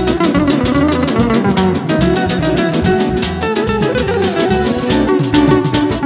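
Instrumental ensemble music: a plucked-string melody over a steady drumbeat.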